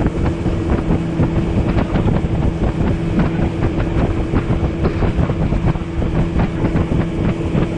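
A jon boat's outboard motor running at a steady cruising speed, a constant low hum, under a dense, continuous clatter of the hull and water.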